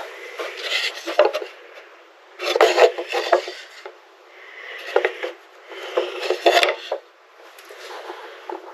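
Handling noises: several short, irregular bursts of scraping and rubbing, with a few sharp knocks among them.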